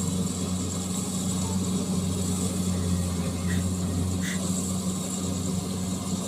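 Rice reaper's engine running steadily as it works its way around the field, a constant low drone.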